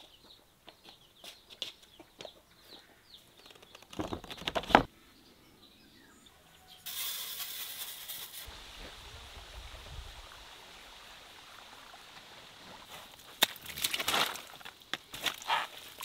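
Chickens clucking, with small birds chirping and a loud brief burst of noise about four seconds in. Then a soft pouring hiss as dry yeast goes into an aluminium bowl, and near the end a spade cutting into wet garden soil in a run of scrapes and thuds.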